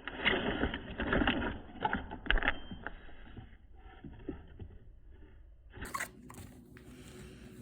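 Packaging being handled and opened: irregular crinkling, scraping and light knocks of cardboard and plastic, loudest in the first three seconds, then quieter rustling.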